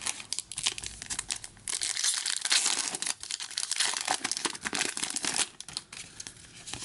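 Hockey card pack wrapper crinkling and cards being handled, a dense rustle that is heaviest from about two to five and a half seconds in.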